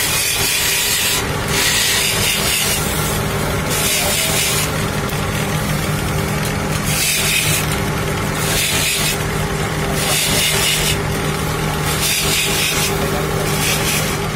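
Electric grinding wheel motor running with a steady hum, while horn rings are pressed against the spinning wheel by hand in repeated strokes, each making a grinding hiss about a second long.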